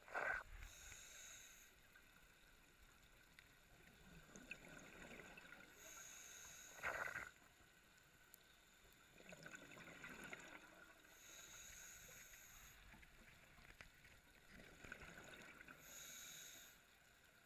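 Scuba diver breathing through a regulator underwater: four hissing inhales about five seconds apart, each followed by a gurgle of exhaled bubbles.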